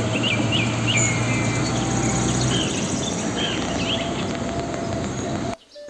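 Large tanker truck's diesel engine running as it drives off along a road, a low hum over steady traffic noise that fades after about two and a half seconds, with birds chirping repeatedly over it. The street sound cuts off suddenly shortly before the end.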